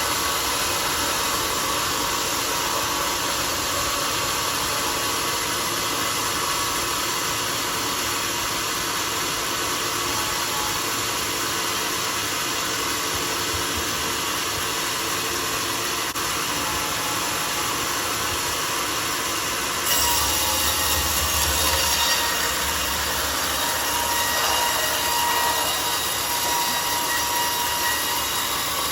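Homemade sawmill running steadily while its blade saws through a mahogany log; about two-thirds of the way through the sound gets louder and harsher, then eases slightly.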